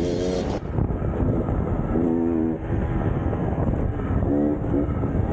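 2019 KTM EXC 300 two-stroke dirt bike engine running under throttle while riding, its note swelling and falling as the rider works the throttle, with rev peaks about two seconds in and again near the end over a constant rushing noise.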